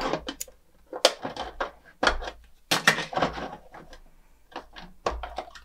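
Pink plastic doors of a toy kitchen sink cabinet being popped off their hinges and handled, a scattered series of sharp plastic clicks and knocks.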